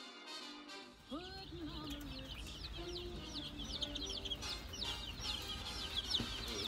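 A brooder full of baby chicks peeping: many short, high chirps, each falling in pitch, overlapping without a break from about a second in.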